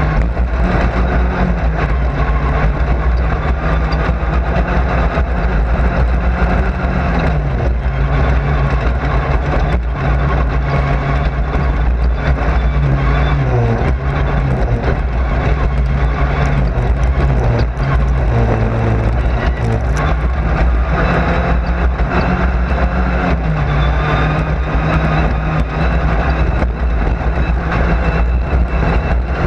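Race car engine heard from inside the car, running hard under load, its pitch stepping up and down every few seconds as the car speeds up and slows.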